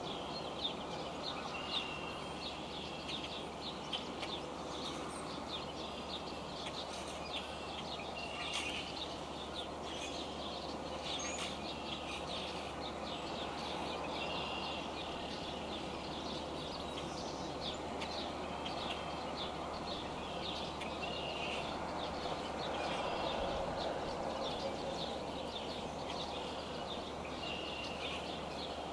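Steady hiss of a rain shower, with a bird chirping again and again in short high notes.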